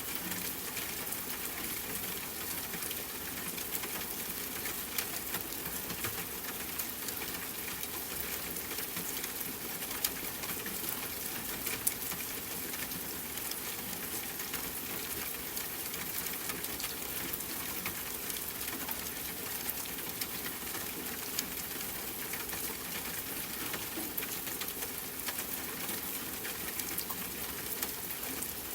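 Steady rain pattering, with many small drop ticks and a few louder single drops.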